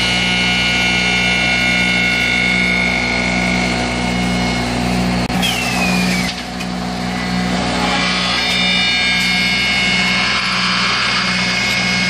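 Broom-handle making machine running: a steady mechanical whine from its electric motors and cutters over a pulsing hum. About five seconds in there is a sharp knock and a short falling squeal, then the steady whine comes back.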